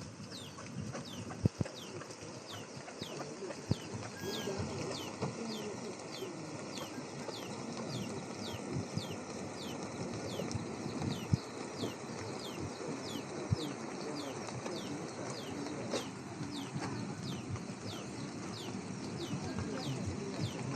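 Outdoor village ambience with a short, high, falling chirp that repeats evenly about twice a second throughout. A steady thin whistle-like tone is held through the middle, and scattered soft knocks sound under a background hiss.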